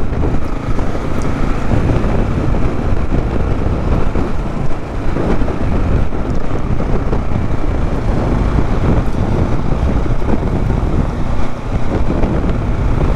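Steady riding noise from a KTM 690 Enduro R at road speed: wind rushing on the microphone mixed with the bike's single-cylinder engine running steadily.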